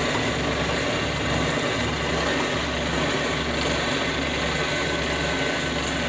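Brown & Sharpe No. 2 horizontal milling machine running steadily while its arbor-mounted cutter takes a 0.1-inch-deep cut in metal at 75 RPM and 4.5 inches per minute of table feed, with a low hum under it.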